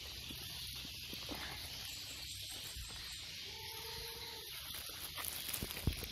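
Steady high hiss of forest ambience, with footsteps rustling through leaf litter and undergrowth growing louder near the end. A short held note sounds faintly about three and a half seconds in.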